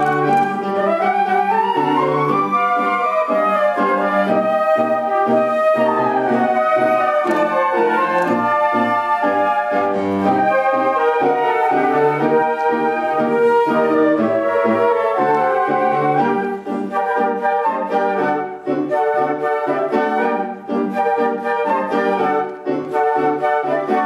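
Flute ensemble playing a tango in several parts: melody lines above a rhythmic accompaniment in the lower flutes. About two-thirds of the way through the playing turns more detached, with short notes and small gaps.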